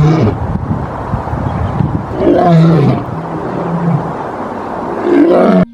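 Lion roaring and growling in rough, drawn-out roars, played as a sound effect for a toy lion.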